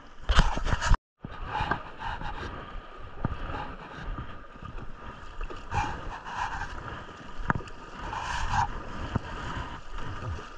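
River water splashing and lapping against a kayak, with a loud rush of water in the first second. The sound cuts to silence for a moment about a second in.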